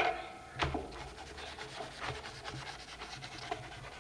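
A hand rubbing and smoothing glued paper down onto a collage board, with soft, irregular brushing strokes of palm on paper and a sharper rub about half a second in.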